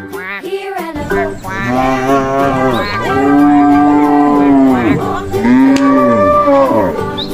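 Cow mooing: three long, drawn-out moos, one after another.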